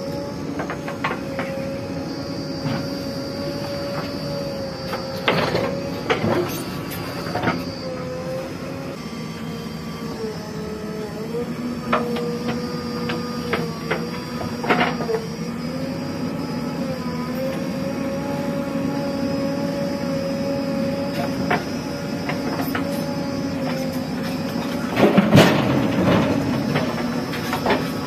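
JCB 3DX backhoe loader's diesel engine running under hydraulic load, its pitch dipping and recovering every few seconds as the backhoe arm digs and swings, with a steady high whine. Scattered knocks and clatter of the bucket and dumped soil, loudest in a burst near the end.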